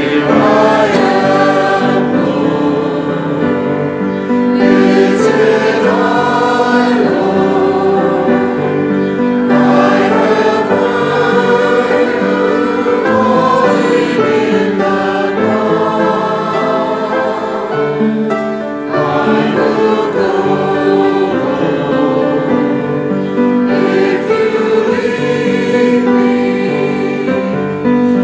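Congregation singing a hymn together, a steady sustained melody with no pauses.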